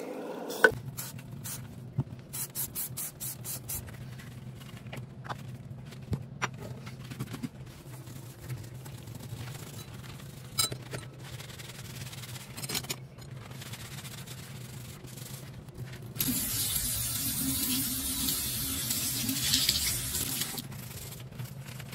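Green scouring pad rubbing and scrubbing on a stainless-steel sink, with a louder, steady stretch of hard scrubbing from about three-quarters of the way in for around five seconds. Near the start there are a few sharp clicks and short squirts from a trigger spray bottle. A faint steady low hum runs underneath.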